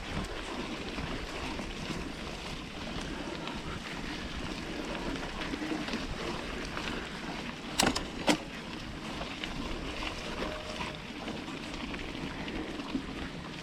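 Hardtail mountain bike riding along a dirt singletrack trail: steady tyre, rattle and wind noise, with two sharp knocks about eight seconds in.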